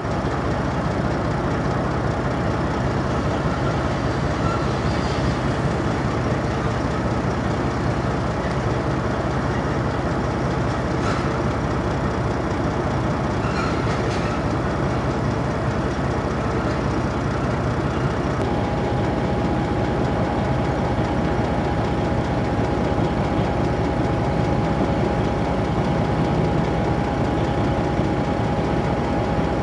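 Steady heavy engine rumble with a faint steady whine that becomes clearer about two-thirds of the way through.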